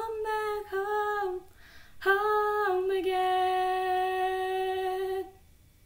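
A woman's solo voice singing unaccompanied: a short sung phrase, a brief breath, then one long steady held note as the song's final note, cutting off just past five seconds in.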